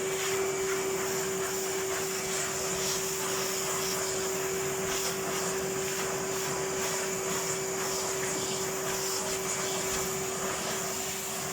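Vacuum cleaner running steadily while hoovering a carpet, its motor holding a constant whine.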